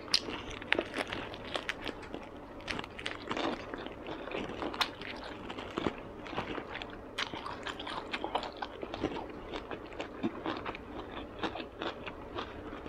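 Close-miked chewing of a fresh rice-paper spring roll: irregular wet clicks and smacks of the mouth, several a second.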